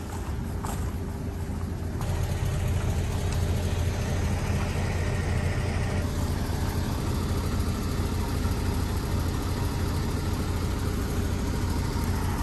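Diesel engine of a crane truck running steadily, its speed and loudness stepping up about two seconds in as it drives the truck-mounted crane lifting a load.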